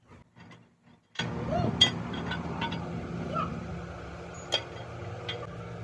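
A steady low machine hum starts suddenly about a second in, with scattered clicks and knocks over it.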